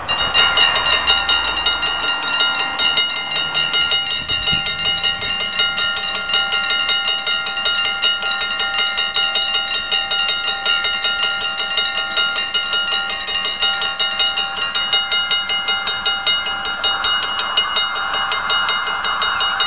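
Level crossing warning bell starting up and ringing rapidly and continuously as the crossing closes.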